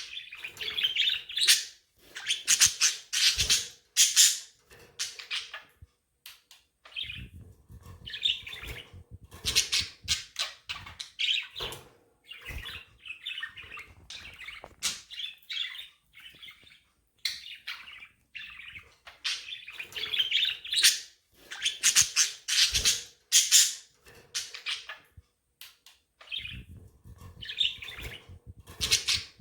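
Budgerigars chirping and chattering in irregular bursts with short pauses.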